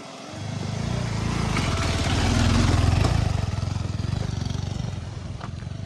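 Motorcycle engine running as the bike rides over a rough dirt track. It grows louder over the first three seconds or so, then eases off.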